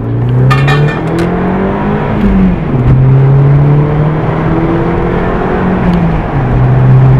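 Muffler-deleted exhaust and turbocharged engine of an Audi B7 under hard acceleration, heard from inside the cabin. The revs climb, fall at an upshift about two and a half seconds in, climb again more slowly and fall at a second upshift near the end.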